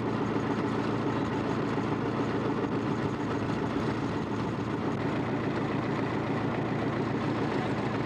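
An engine running steadily at an even, unchanging speed.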